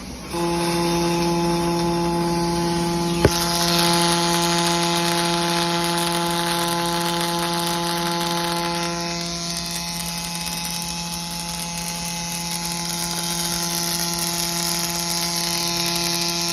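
Miller PerformArc robotic welding cell running: a steady buzz with a hiss over it, starting suddenly about half a second in, with one sharp click about three seconds in.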